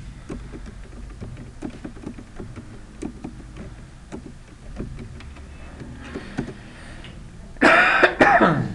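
Computer keyboard being typed on, a run of irregular key clicks. Near the end, a short, loud burst of a man's voice.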